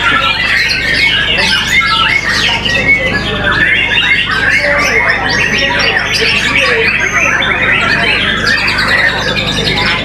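Many caged white-rumped shamas (murai batu) singing at once in a songbird contest: a dense, unbroken chorus of rapid overlapping whistles, chatters and harsh calls.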